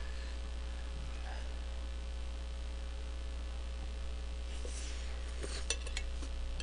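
A metal fork clinking and scraping against a large plate of noodles, a short cluster of clicks about five to six seconds in, over a steady electrical hum.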